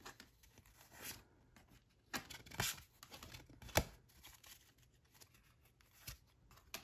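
Tarot cards being leafed through by hand, the cards sliding and flicking against each other in a series of short rustles and snaps, the sharpest about two and a half and four seconds in.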